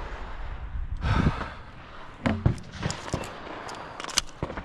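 A person breathing hard after a run, with footsteps and the clatter and clicks of worn gear.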